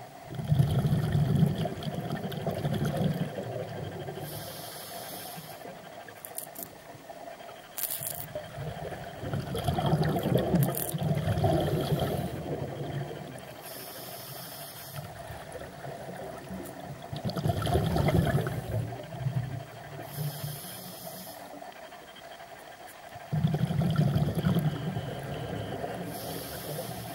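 Scuba diver breathing through a regulator underwater: a short hissing inhale, then a low bubbling rumble of exhaled air, repeating every six or seven seconds.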